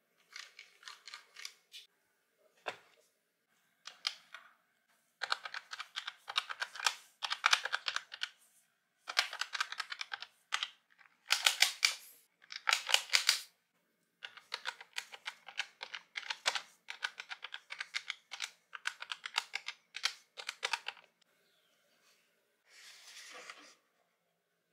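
Plastic keys of a novelty calculator being pressed in quick runs of clicking taps, with short pauses between runs. Near the end, a brief soft scrape or rustle.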